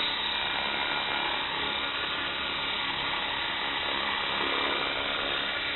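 Electric 450-size RC helicopter hovering just above the ground: the steady whine of its motor and gears with the whir of the rotor.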